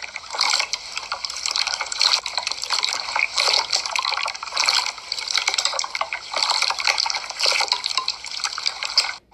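Hands squishing and working a wet, watery slime: a dense run of sticky, wet clicks and crackles that cuts off suddenly near the end.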